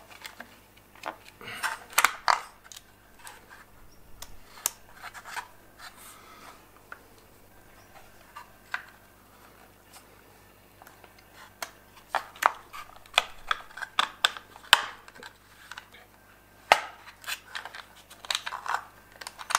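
Scattered small clicks, taps and scrapes of hands seating a new switch and pushing its wires onto the terminals in an air compressor's plastic electrical box, sparser in the middle and busier near the end.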